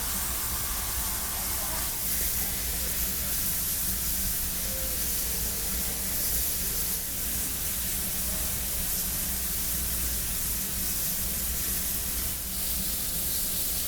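Steady hiss of steam escaping from a steam locomotive, with a low rumble underneath.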